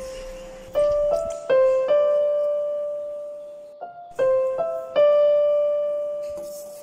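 Background music: a slow piano melody, notes struck in groups of two or three and left to ring and fade.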